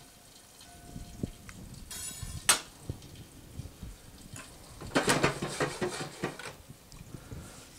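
Kitchen utensil handling: a short clink about two seconds in. Then a louder metallic clatter lasting about a second and a half, from about five seconds in, as the lid of a covered frying pan is lifted.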